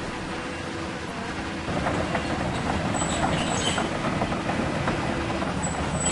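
Hydraulic RC model CAT 336 excavator running, its pump and motors going steadily, growing louder about a second and a half in as its metal tracks clatter over rubble while it drives and turns. Short high squeals come twice.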